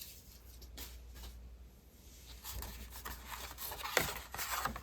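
Paper and card being handled on a table: scattered rustles and scrapes, busier in the second half, with a sharper knock about four seconds in.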